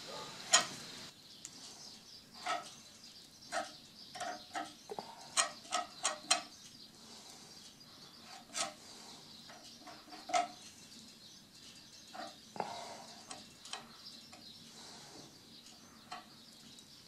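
Light, irregular clinks and scrapes of a metal spatula against a small porcelain bowl and the wood as warm hide-glue putty is scooped up and spread into the damaged moulding.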